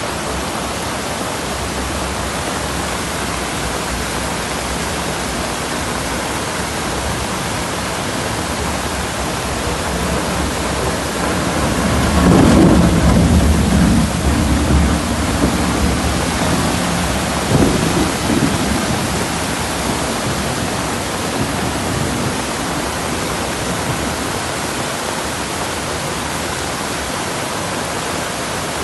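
Torrential rain pouring steadily, with a rumble of thunder swelling up about halfway through and a shorter one a few seconds later.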